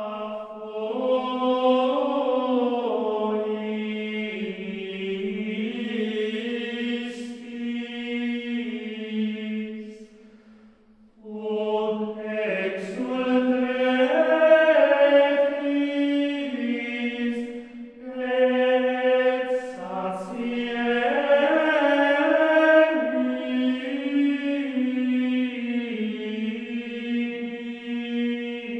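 Slow chanted singing in a single melodic line, sung in long phrases. It breaks off about ten seconds in and again briefly around eighteen seconds.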